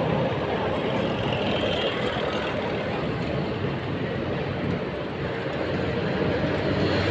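Indian Railways passenger coaches rolling slowly past at close range: a steady rumble of wheels on the rails.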